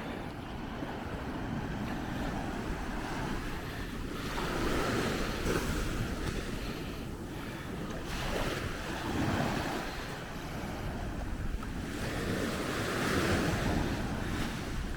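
Ocean waves breaking and washing up the beach, swelling three times, with wind buffeting the microphone.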